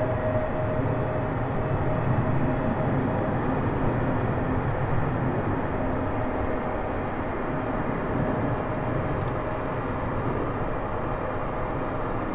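Airbus A350's Rolls-Royce Trent XWB engines in reverse thrust on the landing rollout: a steady jet rush with a faint steady whine, easing off a little over the second half as the airliner slows.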